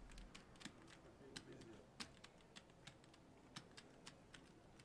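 Faint, irregular clicking of poker chips being handled at the table, a few sharp clicks a second.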